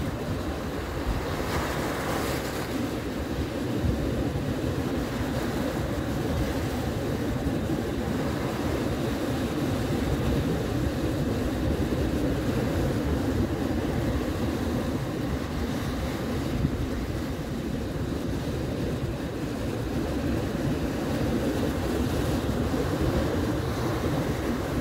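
Ocean surf breaking and washing in over the shallows, a steady wash of water with a brief stronger surge about two seconds in, and wind buffeting the microphone.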